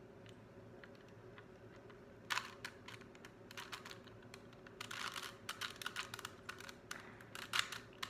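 Plastic 3x3 Rubik's Cube layers being turned by hand, a run of quick clicks and clacks: a short cluster a little over two seconds in, then a denser run from about five seconds on.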